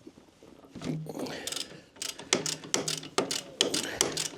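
Socket ratchet clicking in short irregular runs, with light metal clinks, as a 17 mm socket is worked onto a motorcycle's oil drain plug.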